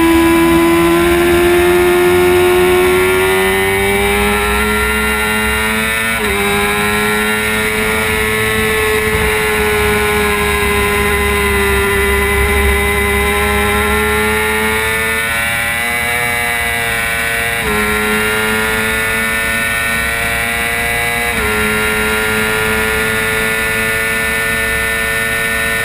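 Suzuki GSX-R600 inline-four engine running at high revs under racing load, heard on board the bike with wind rushing over the microphone. Its pitch climbs slowly, then drops a step at each upshift, about six seconds in and a few more times in the second half.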